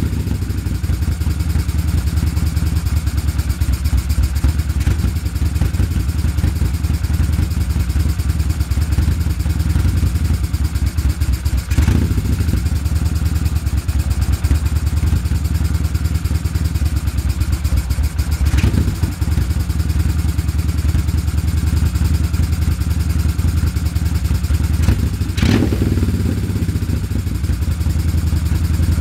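Honda CX500 V-twin motorcycle engine idling roughly and unevenly, with three brief sharp louder bursts spaced several seconds apart. The rough idle is the sign of a misfire on the left cylinder.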